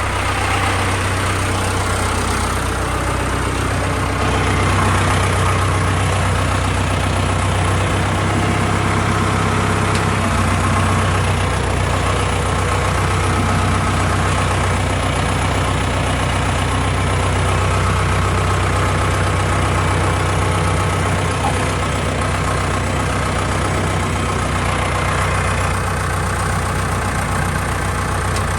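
Four-wheeler (ATV) engine running steadily at low revs.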